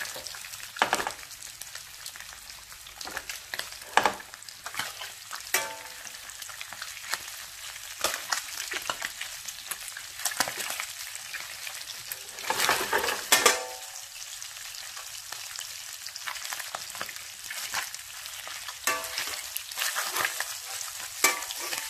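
Octopus tentacles sizzling in olive oil in a hot blue steel pan. Metal tongs click and scrape against the pan as the pieces are turned, with a louder run of clatter a little past halfway.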